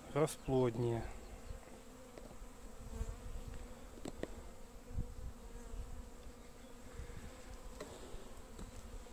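Honeybees buzzing steadily over an open hive whose frames are crowded with bees, with a few faint knocks a few seconds in.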